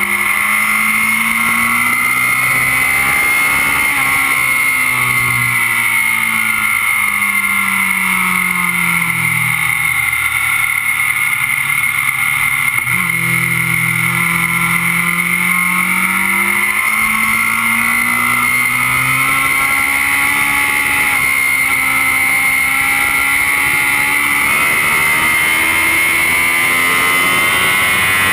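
Kawasaki Z750 inline-four engine at track speed, heard close to the engine cases: the revs rise and fall through the corners, with a sudden change about halfway through. Heavy wind rush and a steady high whine run under the engine throughout.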